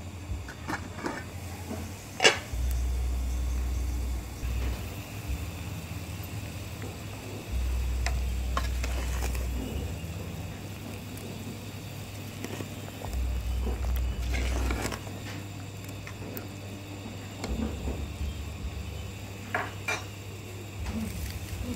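An aluminium pot lid clanks sharply once about two seconds in, then a metal ladle clinks against the aluminium pot as it stirs the boiling soup. A low rumble swells and drops several times.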